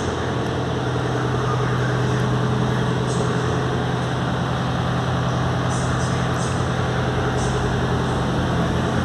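Kawasaki Z650's parallel-twin engine idling steadily with an even hum.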